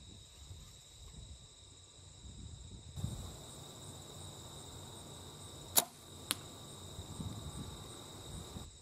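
An arrow shot from a Bear Carnage compound bow at a 30-yard target: a sharp snap about six seconds in, then a fainter click half a second later as the shot and the arrow's strike on the target. Steady high insect buzz underneath.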